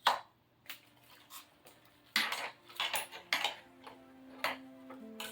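Sharp metallic clicks and clacks as the e-bike's handlebar stem latch and clamp are worked to unlock the stem, with a cluster of quick knocks in the middle. Background music fades in near the end.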